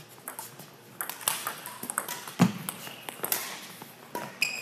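Badminton rally: a string of sharp racket-on-shuttlecock hits and brief shoe squeaks on the court floor, with one heavier thump about halfway through.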